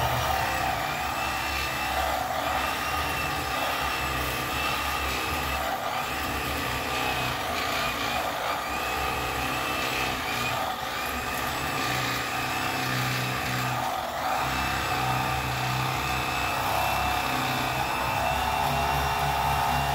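Electric fillet knife running steadily as its blades cut down along a crappie's backbone.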